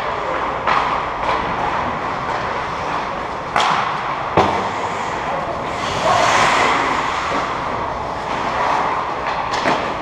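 Ice hockey play on a rink: skates scraping and carving the ice over a steady hiss, with sharp clacks of sticks and puck, the loudest a crack about four seconds in, and a louder skate scrape about six seconds in as a player passes close by.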